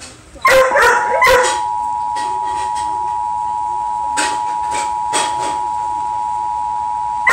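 Emergency Alert System attention signal from a TV: a steady two-tone beep that starts about half a second in. A dog barks loudly over it, a quick burst of barks at first, then single barks about four and five seconds in, and more right at the end.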